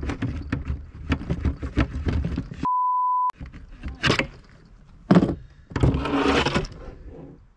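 A hand scraper rasping in quick strokes across a panel, cut off by a steady, high censor bleep about half a second long, roughly three seconds in. Afterwards come a few short scraping and knocking noises as the panel is handled.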